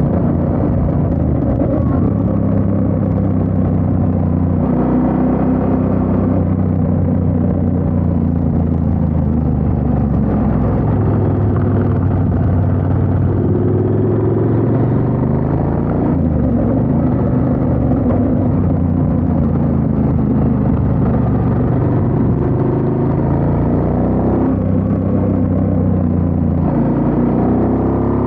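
Motorcycle engine heard from on board while riding, revs climbing and dropping back several times as the rider shifts gears and rolls on and off the throttle through the bends.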